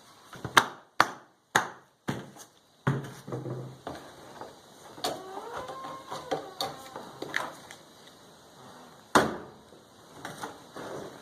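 Irregular sharp knocks and clicks, as of things being handled and set down: about five loud ones in the first three seconds and another about nine seconds in, with quieter taps between.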